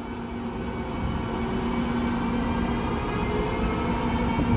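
E402B electric locomotive drawing slowly towards the listener: a steady electric hum with held whining tones over a low rumble, growing louder as it nears.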